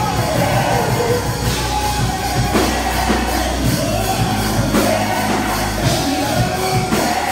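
Live gospel music: a man's voice singing through a microphone over band backing, with bass and drums keeping a steady beat of about one hit a second.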